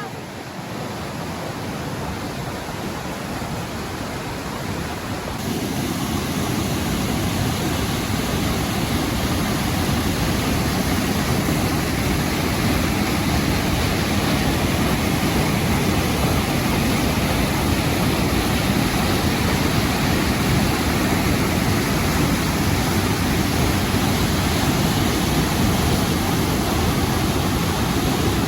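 Waterfall's rushing water: a steady, even rush that grows louder about five seconds in.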